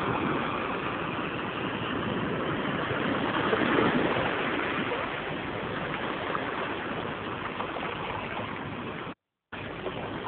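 Steady rush of sea water washing around shoreline rocks in shallow surf. The sound cuts out completely for a moment near the end.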